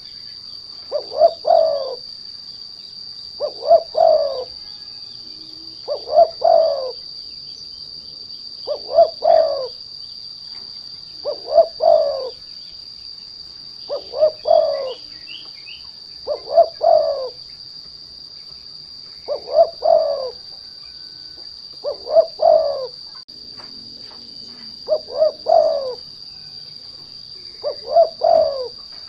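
Spotted dove (derkuku) cooing its song over and over, a short phrase of a few notes about every two and a half to three seconds, as a lure call to set other doves singing. A steady high-pitched whine runs underneath throughout.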